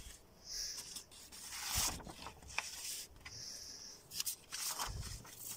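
Sheets of paper rustling and rubbing against one another in several irregular bursts as a stack of drawings is handled and leafed through.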